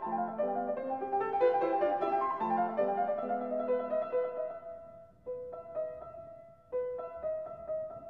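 Solo piano music: a busy run of notes that thins out about halfway through to sparse, held notes.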